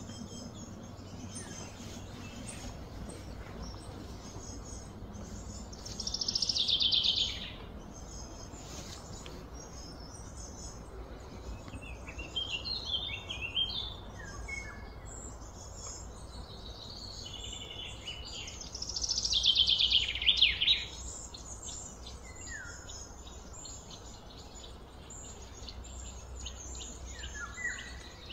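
Birds calling over a steady background of high insect and bird chirping. Two louder calls fall in pitch, one about six seconds in and one near twenty seconds, with scattered short chirps between them.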